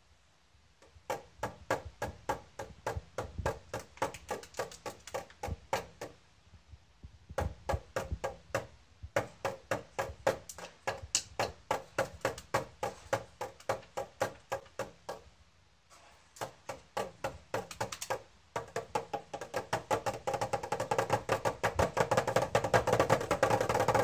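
Toy snare drum struck with thin plastic sticks: runs of quick taps, several a second, broken by short pauses.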